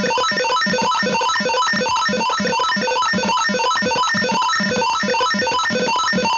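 Simulated piezo buzzer of an Arduino PIR-sensor doorbell going off: a loud, rapid chain of short beeps, about five a second, changing pitch. It is the alarm signalling that the PIR sensor has detected a hand near it.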